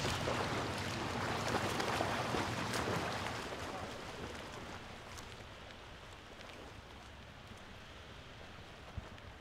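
Small waves washing on a sandy beach: a steady rushing hiss, loudest for the first three seconds, then easing to a softer wash.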